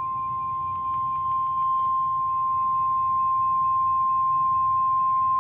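NOAA Weather Radio warning alarm tone: a single steady 1050 Hz beep held unbroken, the attention signal that announces a severe thunderstorm warning. A few faint clicks come about a second in.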